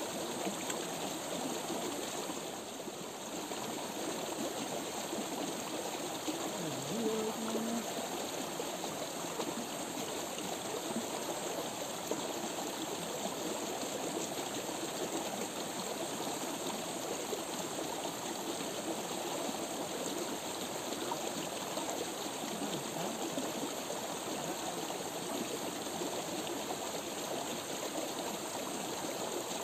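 Steady running water of a small stream, flowing and trickling without a break.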